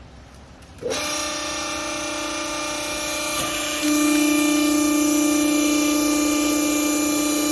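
Hydraulic power unit of a textile baler starting up about a second in: a steady pitched whine from the pump and motor, which steps up louder about three seconds later.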